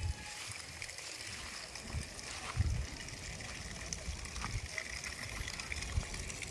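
Steady hiss of running water, broken by a few short low thumps.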